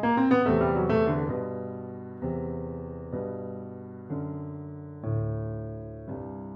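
Grand piano playing a fast run of notes, then slower chords struck about once a second, each left to ring and fade.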